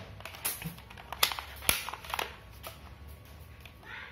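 A toy Dragunov-style rifle being handled between shots: a run of light, sharp plastic clicks and knocks, about half a second apart through the first three seconds, the loudest about a second and a half in.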